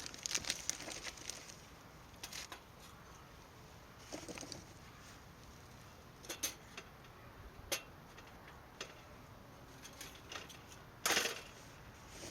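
Intermittent light clicks and knocks of small objects being handled, with a louder, slightly longer knock about eleven seconds in.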